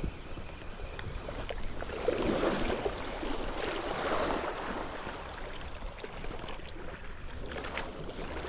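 Sea waves washing on the shore, swelling up about two seconds in and falling back, with wind rumbling on the microphone.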